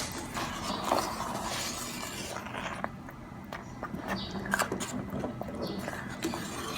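A spoon stirring thick porridge in a cooking pot, with scattered light clicks and scrapes against the pot. The stirring is busier in the first two seconds or so.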